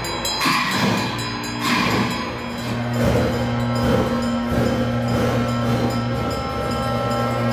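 Tibetan Buddhist ritual music: two sharp crashes in the first two seconds, then a low steady drone, with a ringing bell tone above it.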